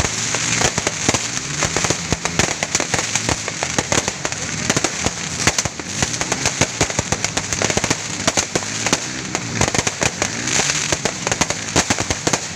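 Fireworks and firecrackers going off nonstop, a dense, irregular rattle of rapid pops and bangs with no gaps.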